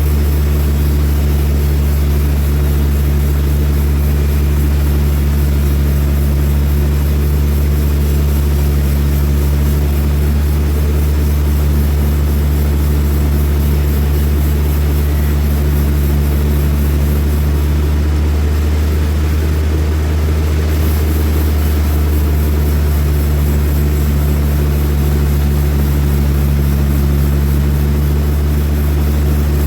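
Large sawmill machinery running with a steady, loud low drone that holds one even pitch throughout.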